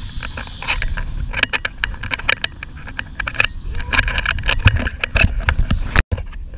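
Low rumbling wind noise on the microphone under a run of sharp clicks and knocks, which are the loudest sounds. The sound drops out for a moment about six seconds in.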